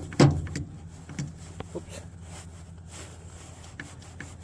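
Hydraulic hand crimper being worked on a battery-cable lug: one sharp metal clunk about a quarter second in, then a few light clicks over a low steady hum.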